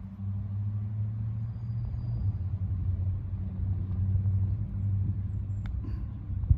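Engine running at a steady low hum, as from a vehicle idling or moving slowly nearby. Near the end there is a single sharp click.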